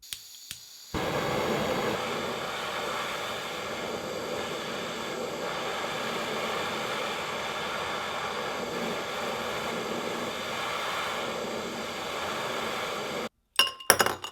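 A power tool running steadily with a loud hiss for about twelve seconds, then cutting off abruptly, followed by a few sharp clicks near the end.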